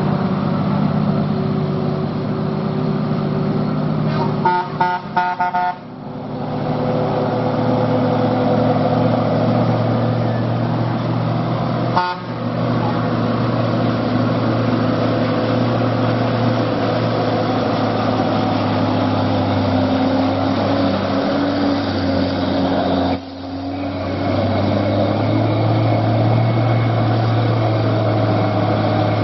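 Heavy truck engines running on a steep mountain descent, their pitch shifting as the trucks work through the bends. About four seconds in, a vehicle horn gives a quick string of short toots.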